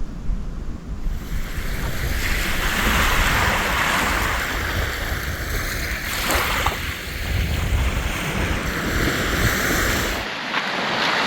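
Lake Superior waves washing onto a sand beach, a steady surf noise, with wind buffeting the microphone. The low wind rumble drops away about ten seconds in.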